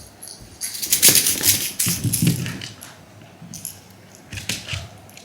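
Pets scuffling in play: a clattering, jingling burst about a second in that lasts nearly two seconds, then a few lighter clicks and rattles near the end.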